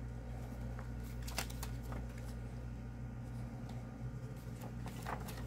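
Paper pages of a softcover book being handled and flipped: short crisp rustles and page flicks, strongest about a second in and again near the end, over a steady low hum.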